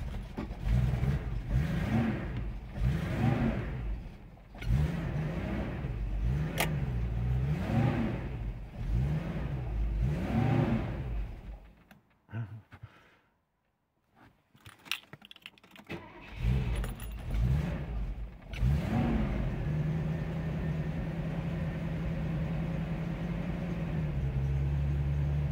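Mercedes-Benz 450SL's 4.5-litre V8 on a cold start with its auxiliary air valve blocked off: the revs rise and fall over and over as the throttle is blipped to keep it running, then it dies about halfway through. After a few clicks it fires again, is blipped twice more and runs steadily near the end; without the air valve it doesn't really want to idle cold.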